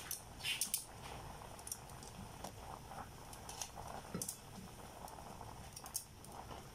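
Water boiling in a pot of instant noodles, with scattered light clicks and taps. In the second half, metal tongs knock against the pot as they stir and break up the noodle blocks.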